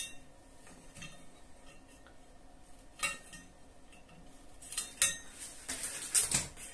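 Pliers clinking and scraping on the metal nut and terminal of a spring heater coil as it is tightened, with a few sharp metallic clicks; near the end the pliers are put down with a clatter.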